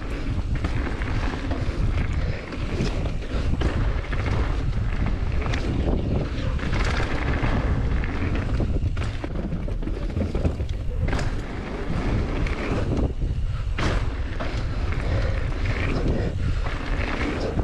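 Wind buffeting the camera microphone and knobby tyres rolling fast over a dirt trail during a mountain bike descent on a Norco Range, with occasional thumps and rattles as the bike hits bumps and landings.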